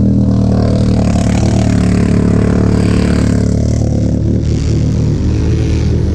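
ATV engine held at high revs, with a rushing noise over it for the first few seconds; the revs waver about four seconds in.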